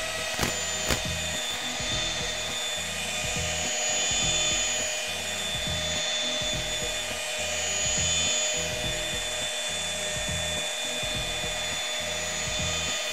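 FLEX electric polisher running at a steady speed, its pad pressed against a car window to work in glass-polishing compound: a steady high motor whine over the rough rubbing of the pad on the glass.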